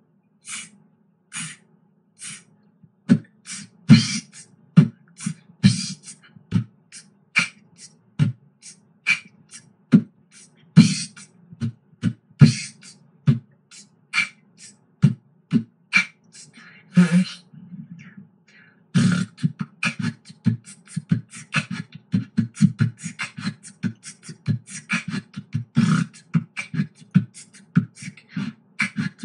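A child beatboxing into a handheld microphone: sharp mouth-made drum strikes over a steady low hum. There is a short break a little past halfway, and then the beat comes back faster and denser.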